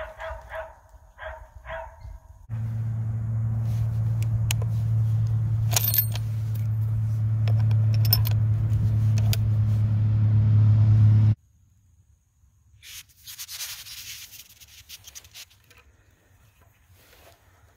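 Sharp metallic clicks of a Sharps rifle's hammer and lever action being worked by hand, over a loud, steady low hum that starts and stops abruptly. Softer rubbing follows near the end.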